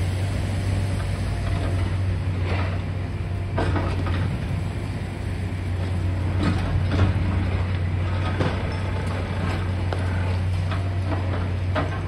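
High-reach demolition excavator's engine running steadily, with irregular cracks and crunches as its grab tears at the building's concrete roof edge.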